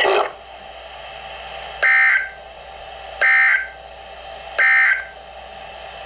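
NOAA Weather Radio end-of-message code played through a Midland weather alert radio's speaker: three short, loud, buzzy bursts of SAME digital data tones, each about half a second long and about a second and a half apart, marking the end of the severe thunderstorm warning broadcast.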